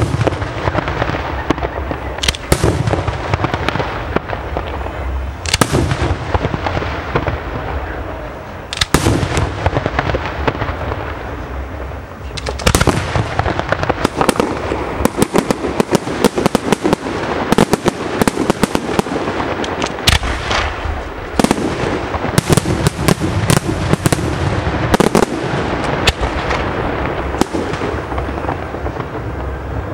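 Aerial fireworks shells bursting overhead one after another, each sharp bang trailing off over a continuous loud rumble. The bangs are spaced a few seconds apart at first, then come thick and fast from about halfway through.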